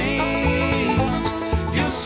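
Background country music, an instrumental stretch with a steady drum beat.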